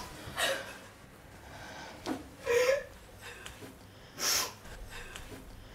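A teenage girl crying: a few sharp, sobbing gasps and sniffs about two seconds apart, one catching in a brief whimper.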